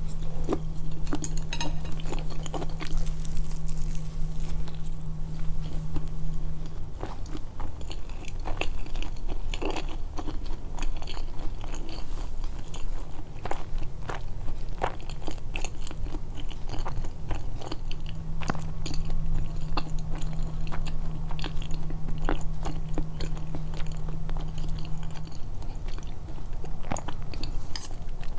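Close-miked, amplified chewing and biting, with many short crunches and mouth clicks. A low steady hum sounds underneath for the first several seconds, stops, and returns in the second half.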